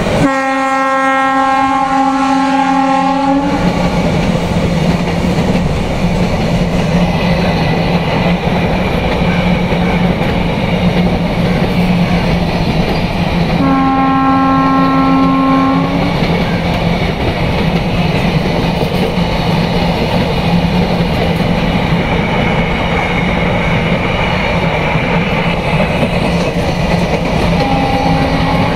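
Container freight train rolling past with a steady rumble and clickety-clack of wagon wheels on rail. Over it, the hauling WAG9 electric locomotive's horn sounds three times: a blast of about three seconds at the start, one of about two seconds midway, and a short one at the very end.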